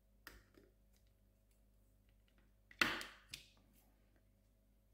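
A few light clicks of a screwdriver at the screw in a soldering iron's plastic handle. About three seconds in comes a louder clatter as the screwdriver is set down on the bench, followed by a smaller knock.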